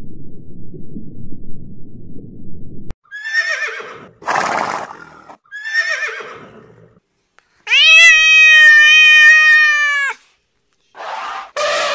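A low steady underwater rumble that cuts off about three seconds in, then three short whinnying calls of zebras, and then one long, loud, steady meow from a domestic cat lasting over two seconds.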